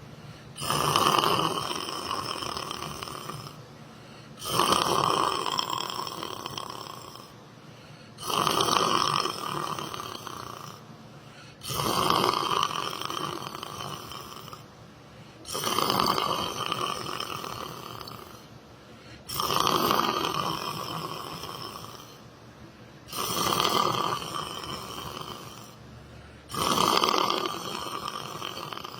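Someone snoring in deep sleep, about eight snores, one every four seconds or so. Each snore starts suddenly and loudly, then trails off before the next breath.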